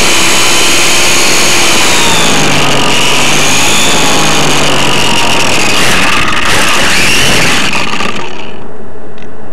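Electric motor and propeller of a GWS Beaver RC plane whining loudly, heard up close through the onboard camera's microphone with rushing air, its pitch wavering as the plane flies low. A few knocks come around six to seven seconds in as the plane comes down in the grass, and the motor sound cuts off about eight seconds in.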